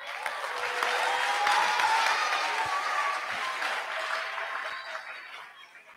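Audience applauding, starting at once and dying away over the last second or two.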